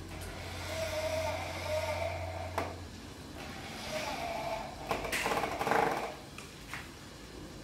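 Corded electric drill driving screws into a uPVC window frame to fit the lock keeps, running in three short spurts, the last the loudest, with a sharp click between the first two.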